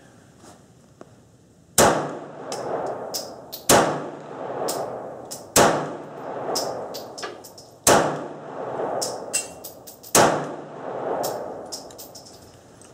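Five pistol shots about two seconds apart, each followed by a long echoing tail, with small metallic clicks between them.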